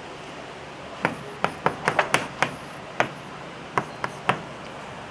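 Chalk tapping and knocking against a blackboard while writing: about a dozen sharp, irregular taps, starting about a second in.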